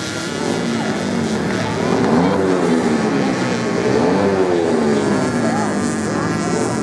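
Several racing motorcycle engines revving on a sand track, their overlapping pitches rising and falling as the bikes accelerate, shift gear and pass by.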